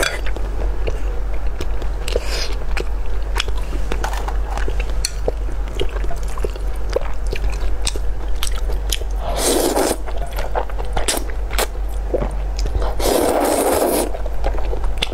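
Close-miked eating: wet chewing and mouth clicks as a person eats noodles and braised pork belly, with two long loud slurps of noodles, one about nine seconds in and one about thirteen seconds in. A steady low hum runs underneath.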